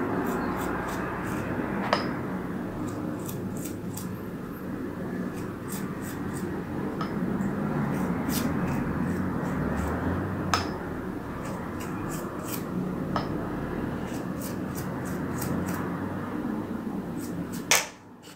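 Silicone pastry brush dabbing milk onto shaped dough rolls on a metal baking tray, with a few light clicks and taps as it touches the tray. This is heard over a steady background hiss that cuts off suddenly near the end.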